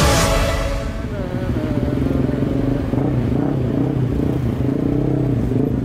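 Electronic dance music fades out within the first second, giving way to a motorcycle engine running steadily at low speed.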